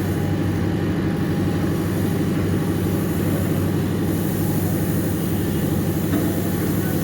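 A motor engine running steadily at a constant speed, giving a low, even drone with a fast, regular pulse.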